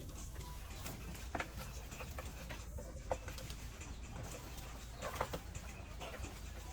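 Quiet animal-pen background: a steady low rumble with a few faint, short knocks and chirps scattered through it, the clearest about one and a half, three and five seconds in.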